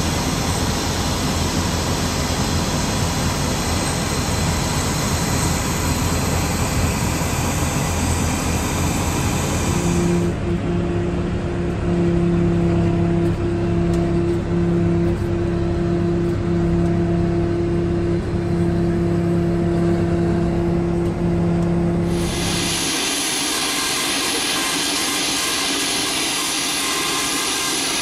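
Steady ramp noise from a Boeing 737-200 hooked up to a towbar for pushback, as jet and ground machinery running. It changes twice: a rushing noise with a low rumble, then from about ten seconds in a steady low hum with a held tone, then near the end a higher hiss with little low end.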